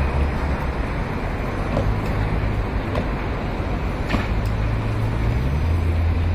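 Motor vehicle running: a steady engine drone with road noise. The engine note rises about two seconds in and drops again near the end.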